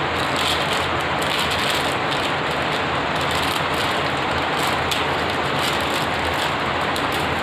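Thin polythene bag crinkling and rustling as it is handled to get the multimeter test leads out: a continuous crackling rustle.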